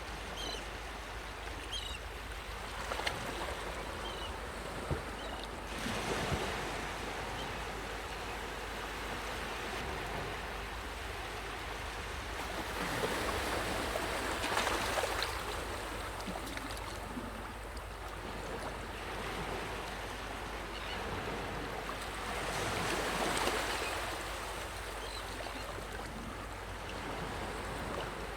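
Sea waves washing onto a sandy shore: a steady hiss of surf that swells as a wave breaks and runs up, three times, every eight seconds or so, over a low steady rumble.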